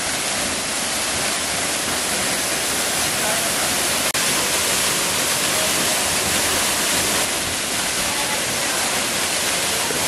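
Waterfall: a steady rush of falling water, broken by a split-second dropout about four seconds in.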